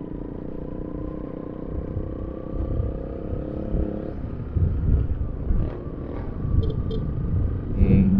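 Motorcycle engine running at a steady pitch while riding; from about halfway through, low gusts of wind buffet the helmet-mounted microphone.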